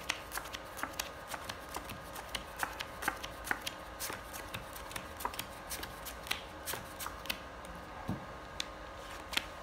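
Playing cards being dealt one at a time onto a felt table: a quick run of light card clicks and snaps, a few a second, thinning out near the end.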